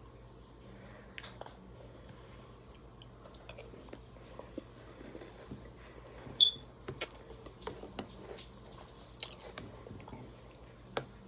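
Crunchy breakfast cereal being chewed close to the microphone: scattered faint crunches and clicks, with one short, sharp ringing click a little past the middle.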